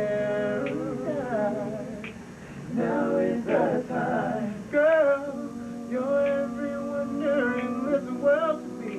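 Male vocal group singing a cappella in close harmony, several voices holding chords under a sung lead line.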